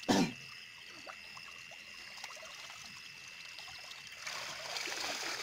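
Water trickling and splashing as a fishing net is lifted out of shallow water, growing louder about four seconds in. A sudden loud burst of noise at the very start, with a steady high tone in the background.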